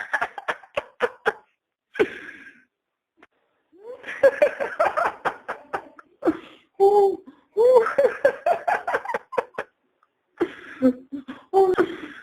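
A man laughing heartily in several bouts of rapid, breathy ha-ha pulses, with short pauses between them, the longest about two seconds in and another near ten seconds.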